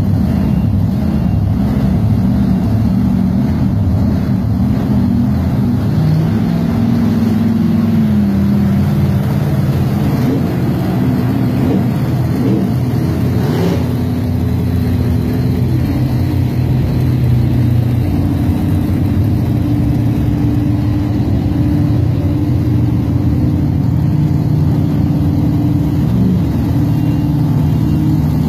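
Monster truck engines running hard at full throttle, their pitch rising and falling as the trucks race side by side.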